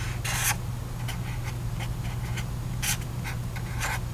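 Marker pen writing on a sheet of paper: a run of short scratchy strokes, some longer, some quick, over a steady low hum.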